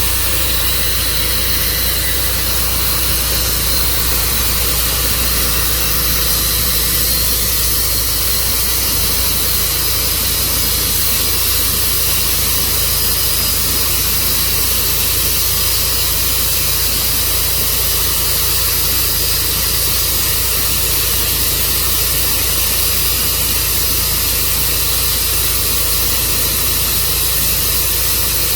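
Tru-Cut sawmill's engine running steadily, with a constant high hiss over a low hum.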